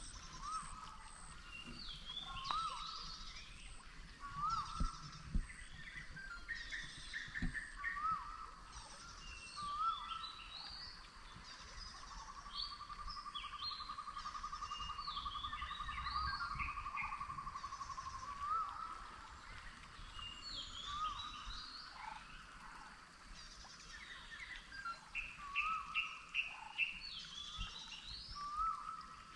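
Several forest birds calling, with short whistled and chirping notes. One bird repeats a short hooked call every couple of seconds, and quick runs of notes come twice. About halfway through, a long even trill is held for several seconds.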